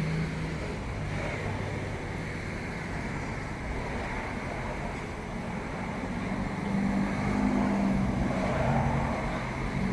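Road traffic in the background, with a vehicle engine growing louder about seven seconds in and easing off near the end.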